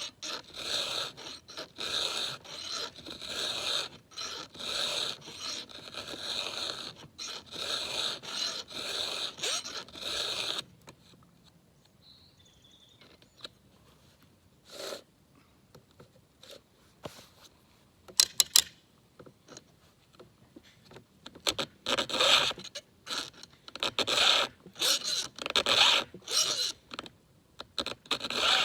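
Hand file stroking across the cutters of a chainsaw chain: rasping scrapes about once a second. The filing stops for about ten seconds midway, with a few sharp clicks, then starts again.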